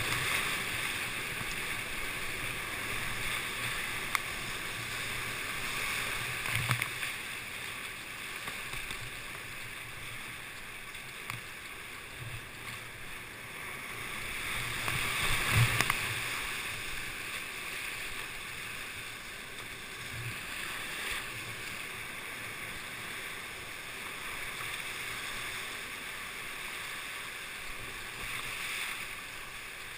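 Class V whitewater rapid rushing around a kayak, with scattered splashes and dull thumps of waves and paddle strokes. The rush swells louder at the start and again about halfway through.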